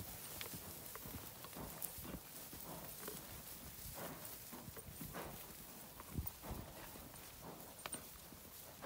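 Horses walking through tall dry grass, their hoofbeats an uneven clip-clop.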